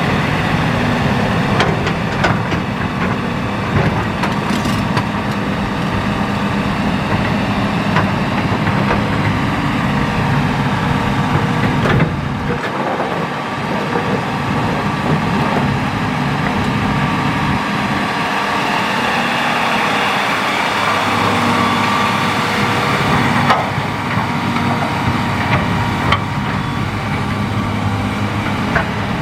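Hitachi hydraulic excavator's diesel engine running steadily while digging sand and gravel, with a few sharp knocks scattered through.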